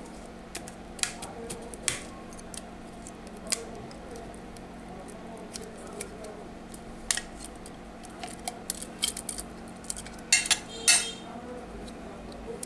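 Small plastic clicks and taps as a phone's plastic housing is prised apart by hand and its circuit board handled, with a quick cluster of louder clicks near the end.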